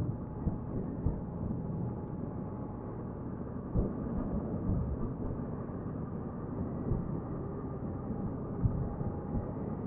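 Motorcycle on the move: the engine is running under steady wind and road noise, with a few brief thumps of wind on the microphone.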